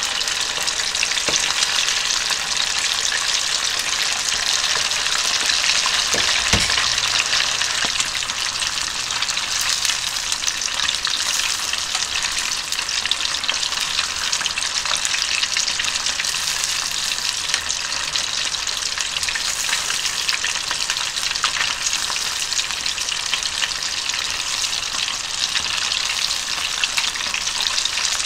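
Chicken karaage deep-frying in oil in a small pot: a steady, dense sizzle and crackle as wooden chopsticks turn the pieces. A single dull knock about six and a half seconds in.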